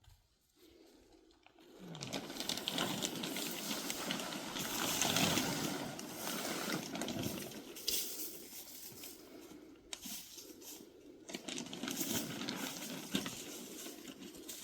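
Greenhouse plastic sheeting rustling and crinkling as it is handled, a crackly noise starting about two seconds in and running on with small surges.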